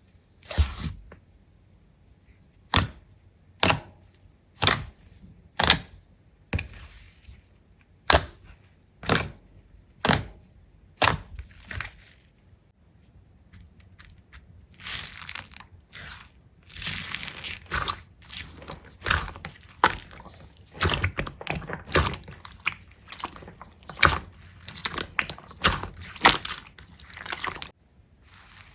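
Slime being squeezed and pressed by hand: sharp pops about once a second, then from about halfway a denser run of crackling, crunching squishes.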